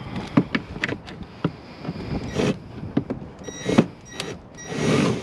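Handling a discarded item by hand: a run of irregular clicks, knocks and rattles, then a longer scraping rustle near the end.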